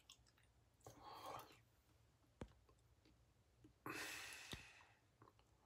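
Near silence: room tone with a couple of faint clicks and two soft rustles or breaths.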